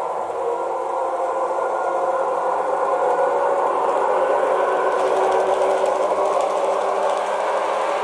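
ESU LokSound 5 DCC sound decoder in a brass HO-scale model of a JR East E353 limited-express train, playing the train's running sound through the model's speaker: a steady electric-train whir with a faint whine in it. It grows a little louder as the model comes closest, about five seconds in.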